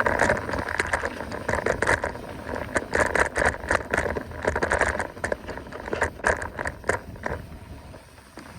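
Mountain bike rolling over a rough trail: tyres crackling and the frame and parts rattling in many quick clicks, with wind rumbling on the microphone. The clicks thin out and it grows quieter near the end.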